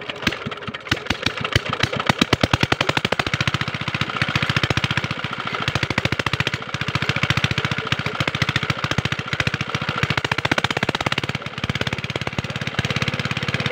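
Small diesel engine of a field irrigation water pump starting up: its separate firing strokes speed up over the first two seconds or so into a steady, rapid chugging run. Near the end the pump is primed and pushing out water.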